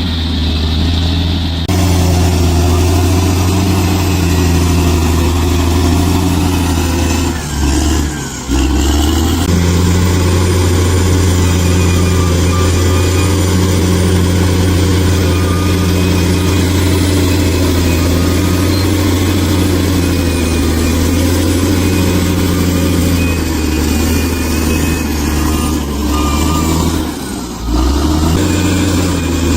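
Bulldozer's diesel engine running steadily, with two brief dips in level, about eight seconds in and near the end.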